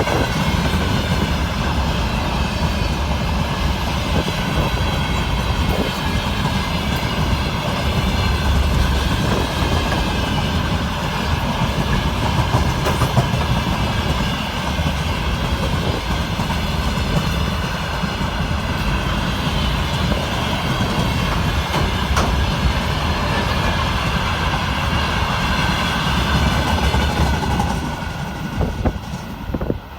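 A train passing close by, its wheels clattering steadily over the rails, the sound falling away near the end.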